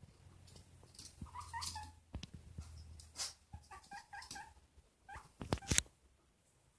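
Guinea pig making short squeaks in two quick clusters, with a few sharp knocks near the end that are the loudest sounds.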